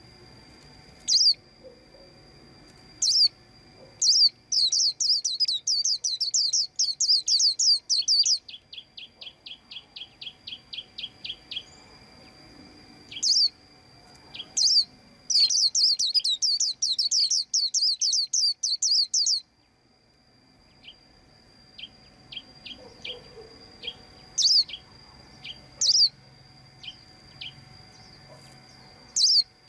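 White-eye calling: short, high chirps every second or two, broken by two runs of rapid chirping about four seconds long, with a faster, lower series of notes between them.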